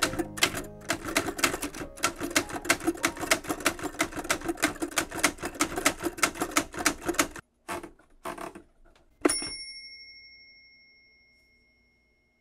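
Manual Smith-Corona typewriter being typed on: a rapid run of key strikes, about five a second, for about seven seconds, then a couple of clicks. About nine seconds in, a single bright ding rings out and slowly fades.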